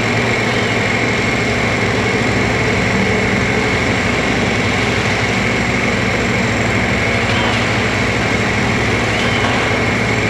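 Liebherr R 964B crawler excavator's diesel engine running steadily under load as it swings its bucket over a tipper truck, with other heavy diesel machinery running alongside.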